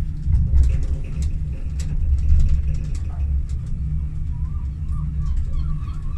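Le Tréport funicular cabin running along its track: a steady low rumble with frequent small clicks and rattles.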